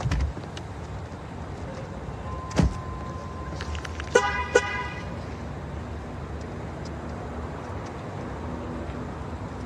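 Car horn giving two short chirps about half a second apart, set off from a remote key fob. A single thump comes shortly before them, over a steady low street rumble.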